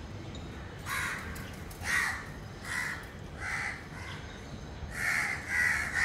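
Crow cawing: four spaced harsh caws, then a quicker run of caws starting near the end.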